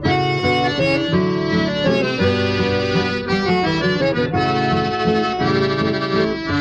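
Instrumental música caipira, with an accordion playing the melody in long held notes over a plucked-string accompaniment.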